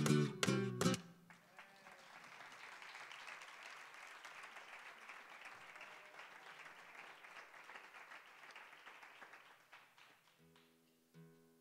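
A flamenco song ends about a second in on a last sung note and strummed acoustic guitar chords. The audience then applauds for about nine seconds, fading out, and single plucked notes on the acoustic guitar follow near the end.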